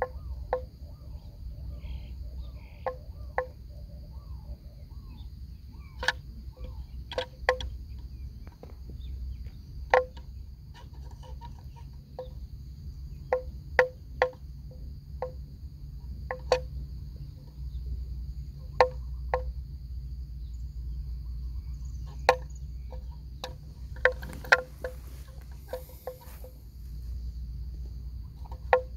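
Water buffaloes grazing, irregular sharp snaps as they crop and chew grass, roughly one a second, with a cluster of them near the end. A steady insect drone sounds underneath.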